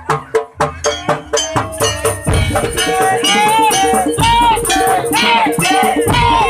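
Percussion-led music: quick, sharp rattling strokes, joined about two seconds in by a louder, denser part with a steady beat and a melody in short rising-and-falling phrases.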